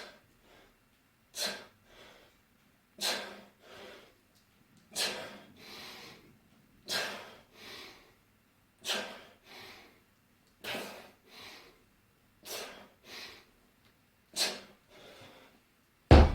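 A person breathing hard in time with goblet squats: a sharp, forceful breath about every two seconds, each followed by a softer one, nine times over.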